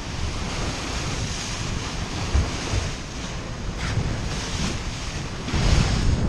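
Water rushing and splashing along the hull of a small racing prototype sailboat under way, with wind buffeting the microphone; it gets louder near the end.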